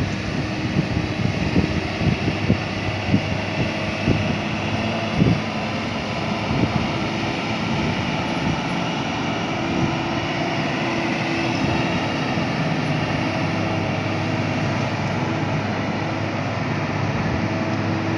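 Hino truck's diesel engine pulling an LP gas tanker semi-trailer slowly round a hairpin bend: a steady, deep engine drone with a low hum. Irregular low thumps sound through the first several seconds.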